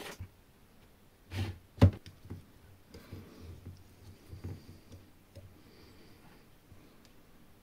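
Workshop handling noise: two sharp knocks about a second and a half in, then scattered small clicks and rubbing, as of small parts being handled and set down on a bench.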